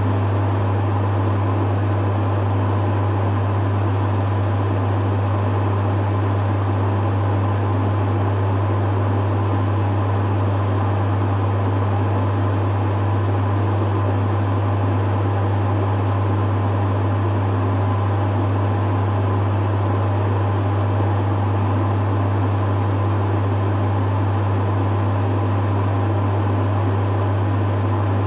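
Dehumidifier running steadily: a strong low hum under the even rush of its fan.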